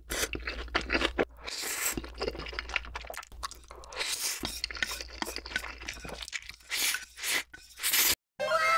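Close-miked eating sounds: crunchy chewing of fried chicken, then wet slurps of black bean sauce noodles, in irregular bursts. Just after 8 seconds the sound cuts off briefly, and a string of falling whistle-like tones begins.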